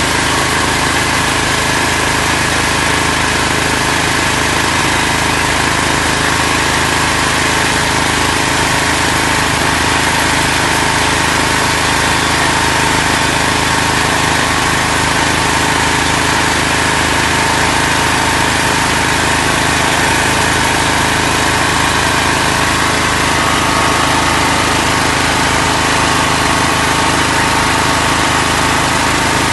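Steady mechanical drone of running machinery, engine-like, with a few steady whining tones over a noisy hum; it does not change.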